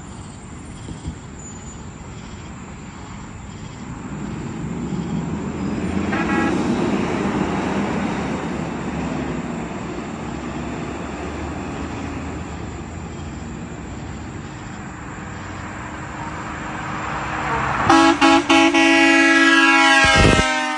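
Road and engine noise of traffic swelling and fading, then near the end a 2001 International truck's air horn blows: a few short blasts, then one long chord of notes that drops slightly in pitch as the truck passes.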